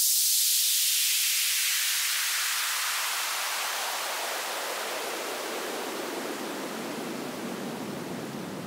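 Synthesized noise sweep: an even hiss that starts thin and high and slowly fills out lower, gradually fading. This is an electronic music sound effect rather than the truck.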